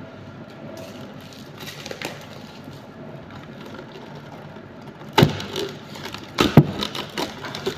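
Plastic cling film being pulled from its boxed roll and stretched over a glass bowl, rustling faintly. A few sharp crackles and knocks follow about five and six and a half seconds in, as the film is torn off against the box's cutting edge and the box is handled.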